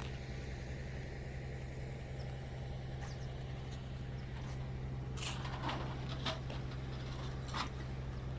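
Steady low hum of idling vehicle engines, with a few sharp clicks and crackles in the second half.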